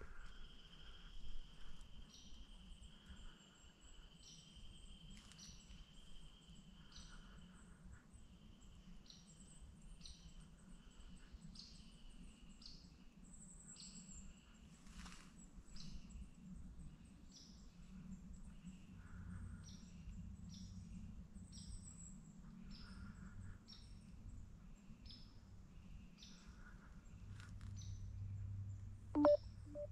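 Quiet woodland ambience: short high chirps repeat over and over, roughly once a second, with a thin steady high tone for the first several seconds and a faint low rumble underneath. A brief louder sound stands out near the end.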